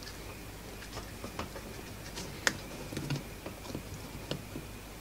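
Light, scattered clicks and ticks of a plastic mains plug and its cable being handled during rewiring, with one sharper click about halfway through.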